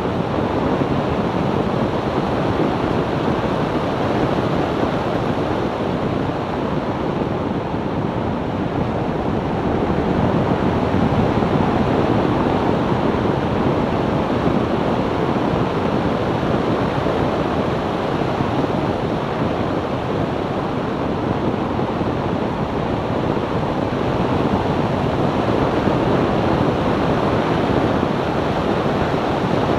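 Steady road and wind noise of a 2002 BMW E46 330ci cruising at an even speed, tyres rolling on asphalt, with no distinct engine note standing out.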